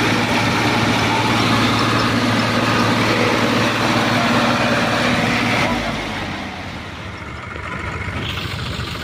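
Diesel tractor engines idling close by, a steady low hum. A little before six seconds in, the sound changes abruptly and becomes quieter and more distant.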